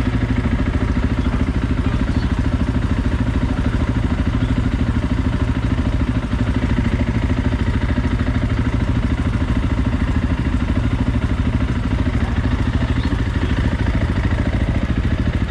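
Motorcycle engine idling steadily, running on its own after being jump-started from a booster pack.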